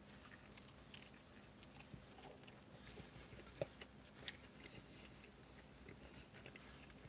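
Faint chewing of a mouthful of burger, with small scattered mouth clicks and a sharper click about three and a half seconds in.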